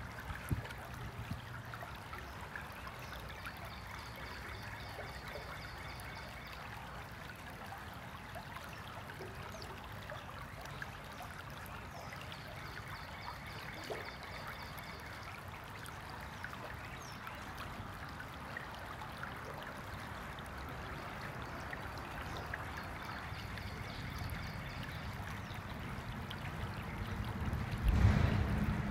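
Stream water running and trickling steadily. A faint high trill comes and goes three times, and a loud low thump comes near the end.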